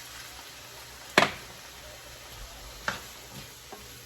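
Kitchenware knocking while cooking: one sharp knock about a second in, the loudest sound, and a lighter one near three seconds, over a faint steady hiss from the pan.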